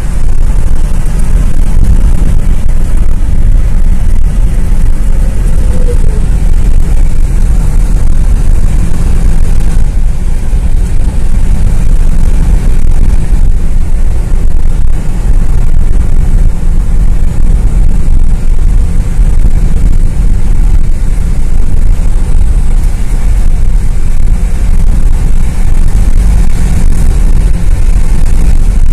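Steady, very loud low rumble of road and engine noise inside a moving Mercedes-Benz car's cabin at highway speed.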